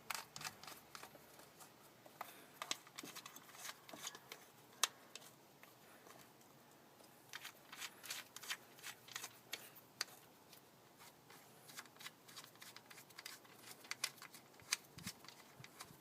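Faint, scattered metallic clicks and ticks, in quick runs, of bolts being fitted and hand tools worked on a car engine's valve cover.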